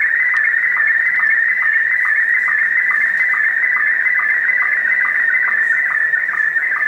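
Slow-scan television (SSTV) picture signal received over shortwave radio in Scottie 1 mode: a steady warbling tone with a short lower sync blip about every 0.4 s, one blip per image line, over a background of radio hiss.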